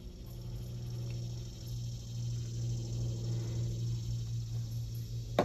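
A steady low hum runs throughout, and one sharp click sounds just before the end.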